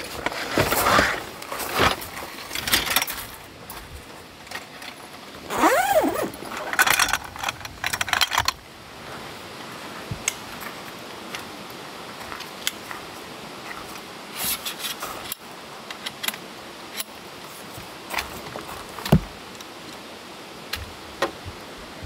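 Camping gear being handled: stuff sacks rustling and light metallic clinks, busy for the first eight seconds or so, then only scattered clicks and taps, with one louder knock near the end.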